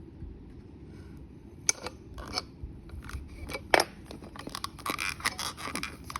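Hard plastic parts of a rolling stool's base clicking and scraping as a leg piece is worked into the hub by hand: a few sharp separate clicks, the loudest just past the middle, then a quicker run of small clicks and scrapes near the end.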